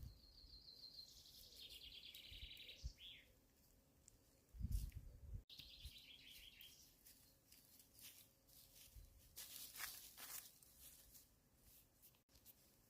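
A songbird singing faintly: two trilled phrases, each falling in pitch, about five seconds apart. A dull thump comes just before the second phrase, and a few clicks follow later.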